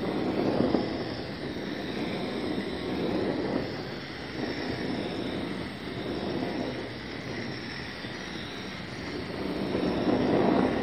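Hand-held gas torch burning with a steady roaring hiss, swelling and easing several times as the flame is swept back and forth over polyethylene boards to flame-treat their surface for gluing; loudest about a second in and near the end.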